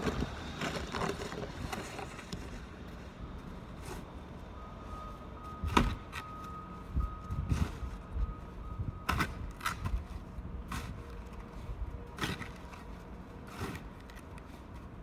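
Snow shovel scraping and striking the snow-covered walkway in irregular strokes, a few seconds apart, with a low rumble of street traffic underneath.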